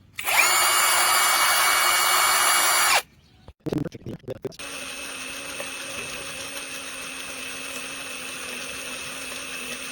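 Greenworks 24V brushless cordless impact driver running with no load: a loud, steady high whine for about three seconds that cuts off. After a few brief clicks, it runs again more quietly and steadily for the rest of the time.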